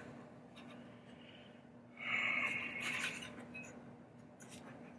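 Quiet handling noises: a short rubbing scrape lasting about a second, starting about two seconds in, and a few faint clicks, over a steady low hum.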